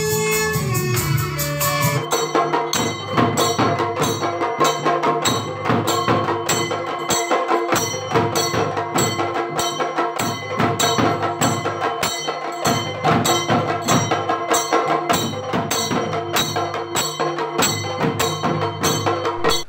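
Kerala percussion ensemble playing a fast, steady rhythm on chenda drums, with small hand cymbals (ilathalam) clashing on the beat. A violin melody is heard before the drumming takes over about two seconds in.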